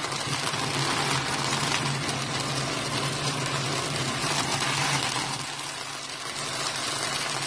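Pork chops in butter garlic sauce bubbling and sizzling in a frying pan: a steady hiss over a steady low hum.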